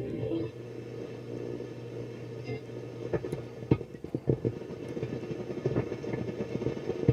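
Shortwave radio reception through a vintage RCA AR-88 receiver: a steady hum and hiss broken by irregular static crackles, loudest around the middle.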